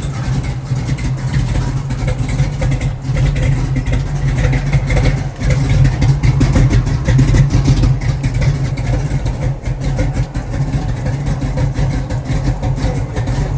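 Cammed LS-swapped V8 in a G-body Monte Carlo SS idling steadily, a little louder in the middle.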